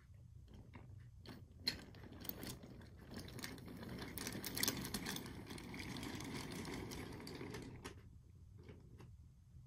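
Wooden toy railway trucks rolled by hand along wooden track, their wheels making a rattling rumble with small clicks and knocks. It builds from about two seconds in and fades near the end.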